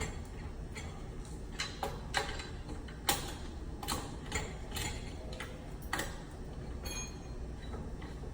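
Irregular metallic clicks and taps of a long 5/16 Allen wrench working the set screws of cable lugs in an electrical panel, over a low steady hum.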